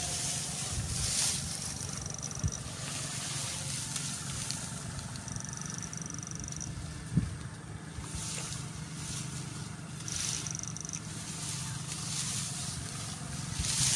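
Legs and probe poles swishing through tall wet grass over a steady low hum, with three brief high-pitched whines about a second long each.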